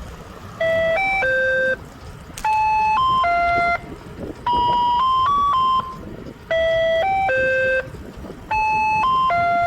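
Bell-like chime melody: short phrases of three or four clear notes, repeating about every two seconds, over a low rumble.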